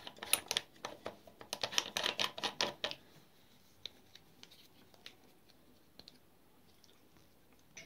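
Steel crimp die being unscrewed by hand from a shotshell reloading press: a quick run of small metallic clicks and scrapes from the threads for about three seconds, then only a few faint ticks as the loose die is handled.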